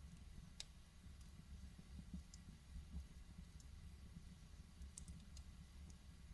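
Wood fire in a fireplace crackling, with sparse sharp pops and ticks, about eight in all and two close together about five seconds in, over a faint low rumble.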